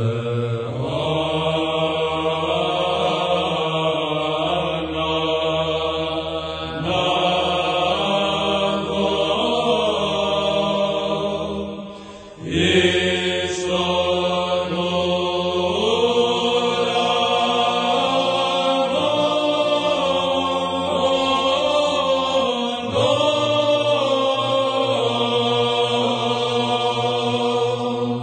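Psalm chant: slow, sustained singing over a held low drone. There is a brief break about twelve seconds in, and the drone drops away around twenty-three seconds while the singing goes on.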